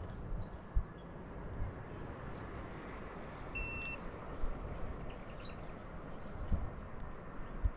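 Steady rush of wind and road noise from riding a Ninebot F30 electric scooter, with a few low bumps and faint bird chirps; a short high beep a little past halfway.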